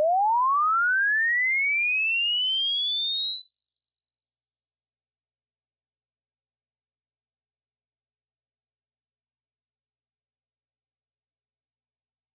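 A single pure sine test tone sweeping steadily upward in pitch for a hearing test. It climbs fast at first, then more and more slowly, until it is a thin, very high whistle near the top of human hearing, where the point at which it fades from hearing marks the listener's upper hearing limit.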